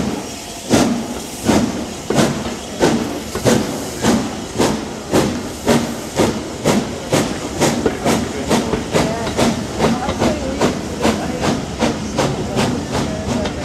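Exhaust beats of the three-cylinder Bulleid light pacific 34046 Braunton, a steam locomotive pulling its train away, the chuffs quickening steadily from slow, separate beats to a faster rhythm as it gathers speed.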